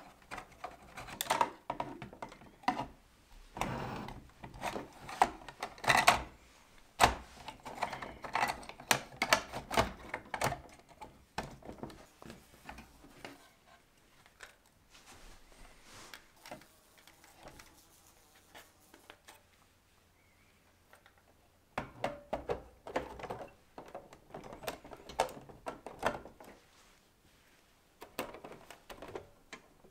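Plastic body parts of a large-scale model locomotive clicking and knocking as they are handled and pressed together. The clicks come in busy clusters, with a quieter stretch in the middle before a second run of clicks and taps.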